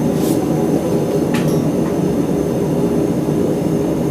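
Blacksmith's forge running with a steady loud drone, with a couple of brief clicks about a quarter second and about a second and a half in.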